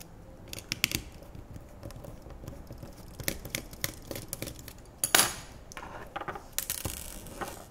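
Small Torx screwdriver loosening screws in a Sony Ericsson T700 phone: faint, scattered clicks and scrapes of the bit turning in the screw heads. A sharp metallic click about five seconds in, and a brief rustle near the end.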